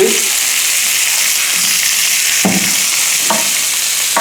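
Squid sizzling in olive oil in a large pan as it starts to give off its liquid, a steady frying hiss. Two short knocks from the stirring utensil come past the middle.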